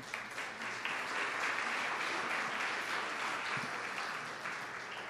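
Audience applauding, swelling over the first second and tapering off near the end.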